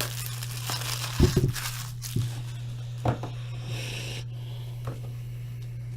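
A trading-card pack wrapper being torn open and crinkled, with several sharp knocks of cards being handled, over a steady low electrical hum.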